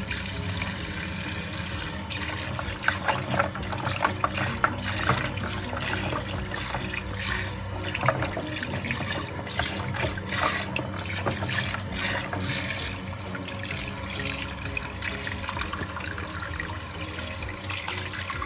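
Kitchen tap water running into a sink while a boiled pork leg is rinsed by hand, with scattered knocks and splashes, most of them in the first two-thirds.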